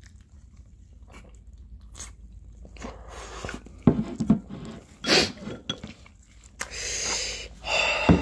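Close-miked mouth sounds of eating spicy Buldak fire noodles: chewing and slurping, with a few sharp clicks and, near the end, two longer hissing breaths through the mouth against the burn.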